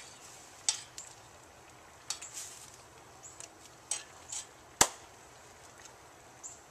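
Metal spoon clinking and scraping against a skillet as the cooking shrimp and vegetables are stirred: a scatter of short sharp clicks, with one louder clink about five seconds in.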